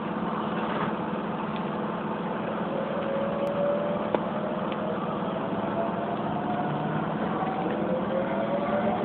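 Keisei 3700-series electric train accelerating from a stop, heard from the cab: a motor whine that rises slowly in pitch from about three seconds in, over the steady rumble of the wheels on the track, with a sharp tick a little after four seconds.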